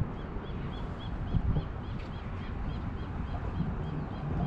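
A bird calling a quick series of short, arched notes, about four a second, fading after the first few seconds, over a low steady rumble of wind and water.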